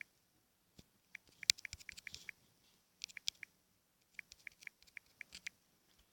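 Faint quick taps and clicks of typing on a smartphone, in three short bursts with pauses between.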